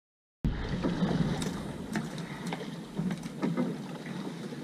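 Silence for the first half second, then the sound on a fishing boat's deck at sea: steady wind and water noise with a few light knocks scattered through it.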